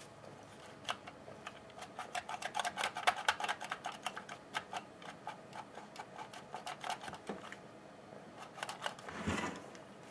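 Quick runs of small clicks and taps from the parts of a Stihl HS80 hedge trimmer being fiddled with by hand during reassembly. The clicks are thickest about two to five seconds in and then thin out, with a short scrape near the end.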